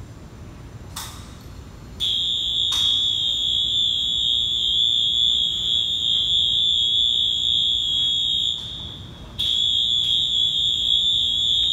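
Motion warning alarm of a 50-ton double box girder overhead bridge crane: a loud, steady, high-pitched tone sounding while the crane is moving. It starts about two seconds in after a short chirp, breaks off for under a second near the end, then comes back.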